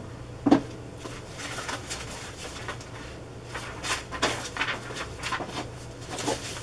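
Sheets of scrap paper being gathered and handled: a knock about half a second in, then scattered rustles and taps, over a steady low hum.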